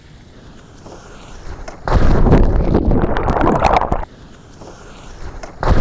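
Water rushing and spraying over the microphone as a Hobie catamaran pitchpoles and its bow drives under. A low hiss of water gives way, about two seconds in, to a sudden loud surge of splashing and wind noise that cuts off two seconds later, and a second surge begins near the end.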